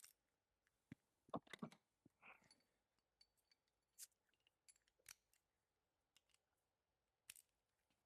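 Near silence broken by a few faint, scattered clicks and clinks of hand tools being handled.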